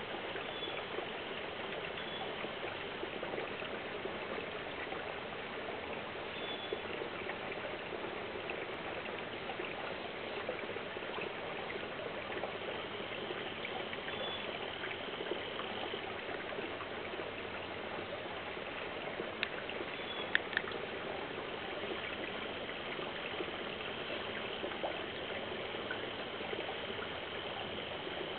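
Stream water running and trickling in a steady rush, with a few faint clicks about twenty seconds in.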